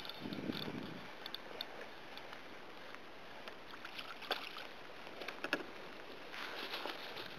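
Water sloshing against a fishing kayak's hull and gear knocking as a hooked fish is brought alongside and landed, with a few sharp clicks and knocks, the loudest about four and five and a half seconds in.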